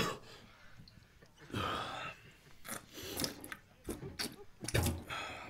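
A person retching and vomiting: a loud burst at the start, then several more bouts of heaving and spewing.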